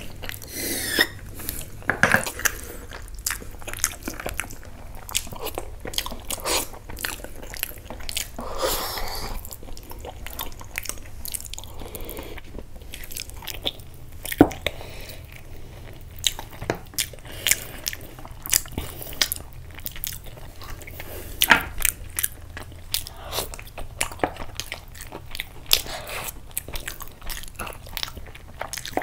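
Close-miked chewing and biting of meat and rice eaten by hand, with a steady stream of sharp mouth clicks and a few louder ones.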